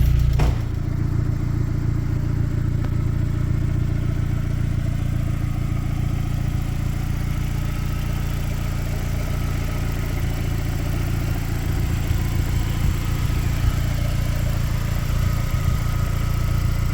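Freshly rebuilt VW 1.8T turbocharged four-cylinder engine idling steadily while warming up, with light valve-tappet ticking from hydraulic lifters that are still filling with oil.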